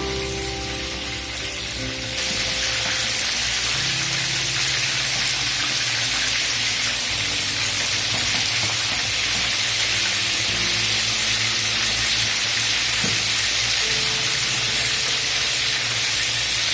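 Chicken frying in hot oil: a steady sizzle that gets louder about two seconds in and then holds, with background music over it.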